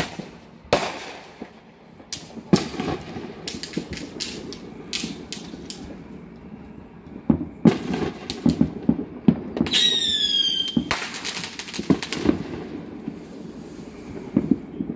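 Fireworks going off: sharp bangs and runs of crackling throughout, with a whistle that falls in pitch for about a second around ten seconds in, followed by a bang.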